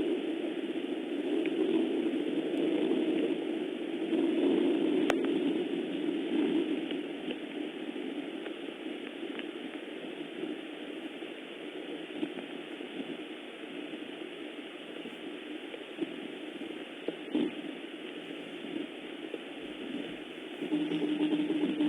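Steady rain falling, heavier for the first several seconds and then easing, with a few faint ticks. Music comes in near the end.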